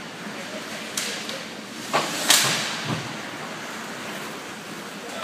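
Hockey play in an echoing rink: a handful of sharp cracks of sticks and puck striking the boards. The loudest comes about two seconds in, with another strong one at the very end.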